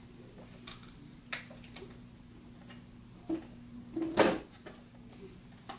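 A few separate clicks and knocks from handling a small ink bottle and its cap, the loudest a knock about four seconds in, over a steady low hum.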